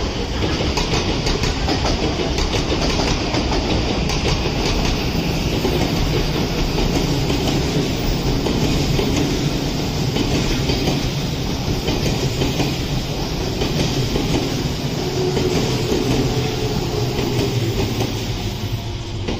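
Odakyu Line electric commuter trains passing close by, their wheels running on the rails in a steady, loud rush of noise.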